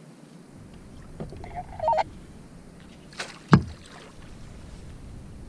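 Handling noise on a plastic kayak as a landing net is brought out to land a fish: a short, high, wavering sound near two seconds in, then a sharp knock about three and a half seconds in, the loudest sound, over a low rumble of wind on the microphone.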